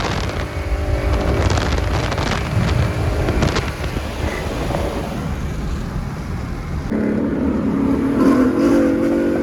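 Car engines and exhaust running loud on the road. About seven seconds in, the sound changes abruptly to a steady engine drone, which climbs in pitch briefly about a second later.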